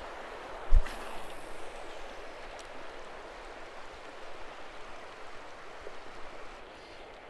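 A spinning rod is cast about a second in, making one sharp thump and swish. After that, shallow river water runs steadily over gravel.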